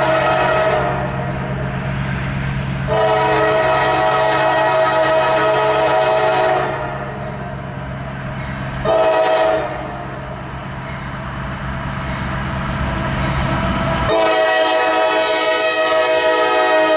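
Diesel locomotive air horn sounding the grade-crossing signal: long, long, short, then a final long blast starting about 14 seconds in and held on, its chord dropping slightly in pitch near the end. A steady diesel engine drone runs underneath until it falls away at the start of the last blast.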